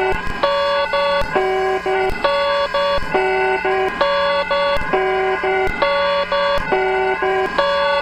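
Electronic EAS emergency alert alarm: loud stepped tones jumping between a few pitches in a short pattern that repeats about once a second, over a faint steady low hum.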